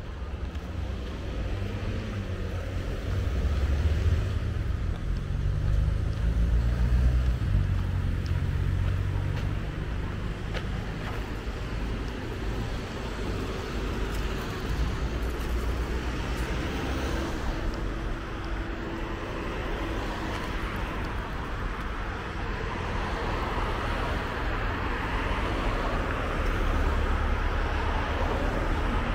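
Motor traffic: a steady low rumble, with a vehicle engine's hum swelling and fading in the first several seconds.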